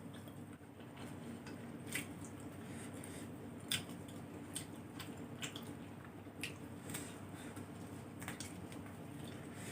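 Close-miked wet mouth sounds of eating: irregular smacking and clicking while chewing, over a steady low hum.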